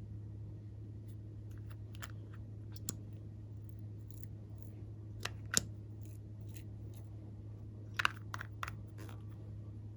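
Glossy slime being handled and mixed, giving scattered sticky clicks and pops, the sharpest a pair about halfway through and a quick cluster near the end, over a steady low hum.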